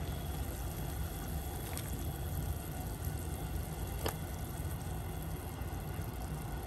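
Water at a rolling boil in a cast-iron pot as raw pork is blanched: a steady low bubbling rumble. Two faint clicks, about two and four seconds in, as the metal tongs touch the pot.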